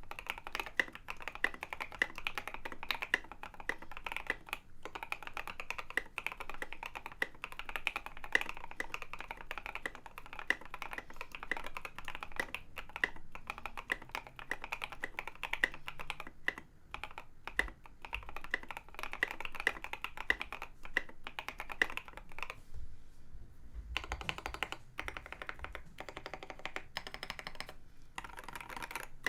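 Fast, continuous typing on a custom mechanical keyboard: a Leopold FC980M in a heavy Norbauer Heavy 9 metal case, with lubed and filmed H1 switches and a steel plate damped with plate foam. The typing breaks off briefly about three-quarters of the way through, then resumes.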